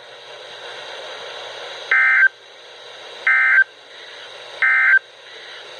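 Weather radio broadcast sending the three short EAS/SAME end-of-message data bursts, buzzy digital tones about 1.3 s apart starting about two seconds in, over a steady hiss of radio static. The bursts close the weekly weather radio alarm test.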